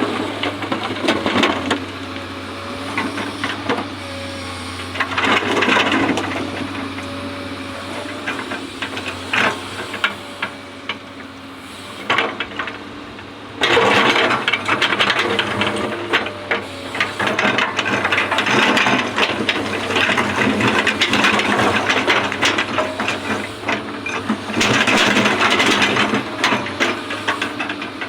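Hydraulic excavator working: a steady engine hum under a dense clatter of rattles and knocks. It dips briefly about twelve seconds in and returns at full level.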